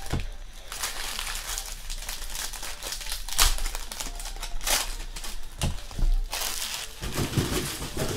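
Foil wrappers of Panini Prizm football card packs crinkling as they are pulled open and crumpled by hand, with several sharper crackles.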